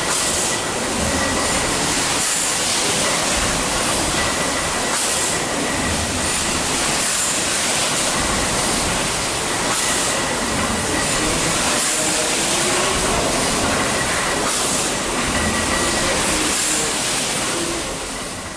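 The 1904 Tees Cottage two-cylinder Woolf compound rotative beam engine running in steam, a steady mechanical rumble and clatter. A hiss surges about every two seconds.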